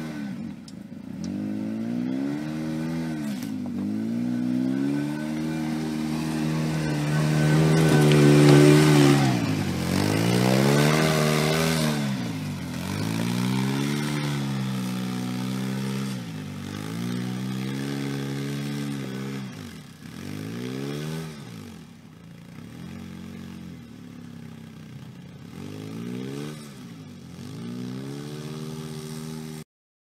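Polaris RZR 800 side-by-side's twin-cylinder engine revving up and falling back again and again as it works up a rocky trail. It is loudest about eight to nine seconds in, and the sound cuts off suddenly near the end.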